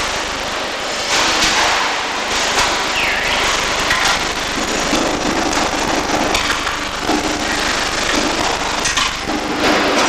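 Electric arc welding: a dense, continuous crackle with irregular sharp pops.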